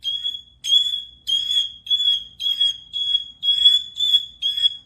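A high-pitched alarm-like beep repeating evenly, about two beeps a second, each short and of one steady pitch.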